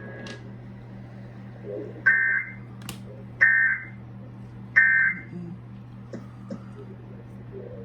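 Emergency Alert System SAME end-of-message data bursts on a NOAA Weather Radio broadcast: three short two-tone digital bursts about 1.3 seconds apart, marking the end of the alert message. A steady low hum runs underneath, with a few faint clicks.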